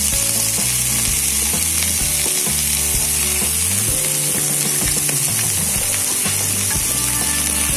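Taro stalks frying in hot oil in a wok, a steady sizzling hiss as more pieces are dropped in and sautéed with garlic and onion.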